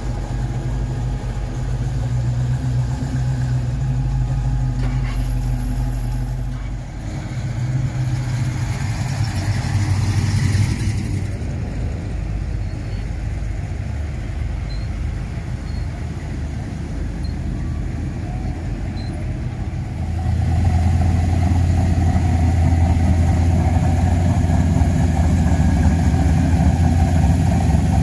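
Classic cars driving slowly past one after another with their engines running: a vintage Ford pickup, a 1955 Chevrolet and a mid-1960s Ford Falcon. Engine noise swells about ten seconds in, and a louder, deeper engine comes close about twenty seconds in.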